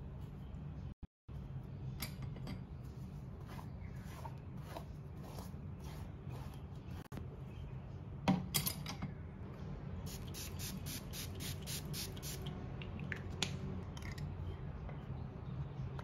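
Small clicks and knocks of objects being handled, over a steady low hum. There is a louder knock about eight seconds in, and a quick run of light clicks, about four a second, around ten to twelve seconds.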